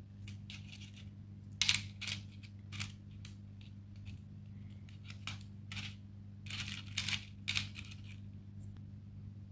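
Irregular light clicks and taps of hard plastic: acrylic press-on nails and loose nail tips knocking against each other and the table as the hands move, over a steady low hum.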